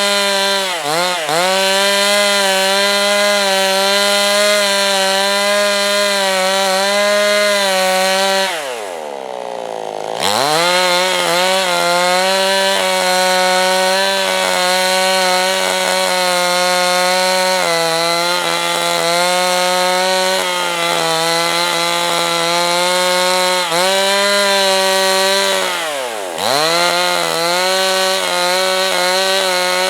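Two-stroke chainsaw running at high revs while ripping lengthwise through a softwood log to mill a slab. The engine sags briefly about a second in, drops to idle for a couple of seconds around a third of the way through before revving back up into the cut, and dips again near the end.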